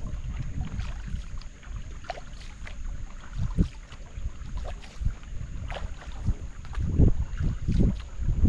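Canoe paddle strokes: the blade dipping and pulling through flat creek water with splashes and drips, over a low rumble. The strokes get louder and more splashy near the end.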